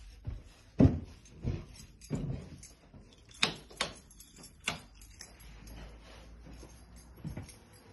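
Footsteps thudding up the last carpeted stairs and across a landing, with three sharp knocks or clicks in a quick run about halfway through and one more thud near the end.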